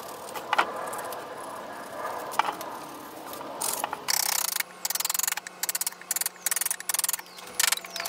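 Pencil scratching across the wooden shovel blade, with two light knocks. About four seconds in, a run of quick, rasping scrapes begins as a carving gouge cuts into the wood of the blade.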